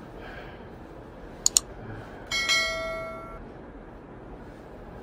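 Two quick sharp clicks, then a bell-like chime struck twice in quick succession about two seconds in, ringing for about a second before it fades.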